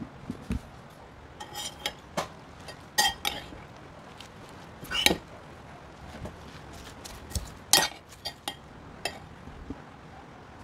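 A metal spoon and fork tossing a leafy salad in a pot, clinking and scraping against its rim and sides in irregular strokes, some with a short metallic ring. The loudest clinks come about five seconds in and again near eight seconds.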